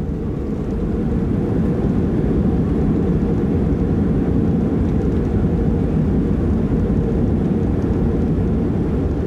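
Steady, loud low rumble of airport noise, with nothing sharp standing out. It swells slightly over the first few seconds and then holds.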